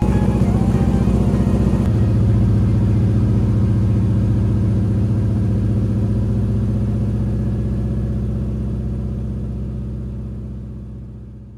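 A light floatplane's engine and propeller running steadily, heard from inside the cockpit, fading out near the end.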